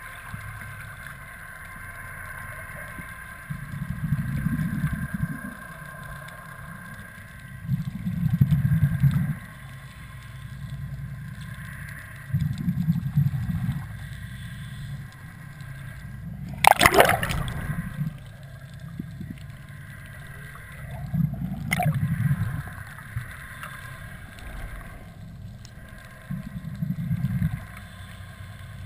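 Scuba diver breathing through a regulator underwater: each exhalation releases a low, rumbling gush of bubbles about every four to five seconds. A steady high hum runs underneath. About two thirds of the way in there is one sharp, loud splash or knock.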